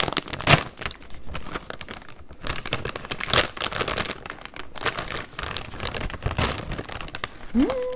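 Plastic chip bag crinkling and crackling as it is pulled and worked at the top seam, a bag that is hard to tear open.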